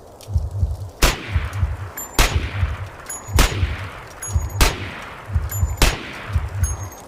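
Designed Uzi submachine gun sound effect: five sharp gunshot hits at an even pace, about one every second and a quarter, each trailing off in a fading tail, over a low pulsing rumble.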